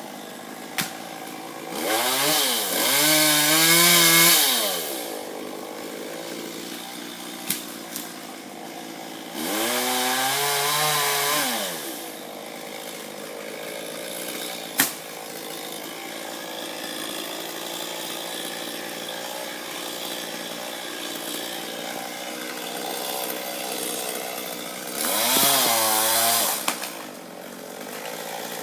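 Chainsaw cutting tree wood, revved up three times for a few seconds each, its pitch rising and falling, and running slower between the bursts. A few sharp clicks are heard in between.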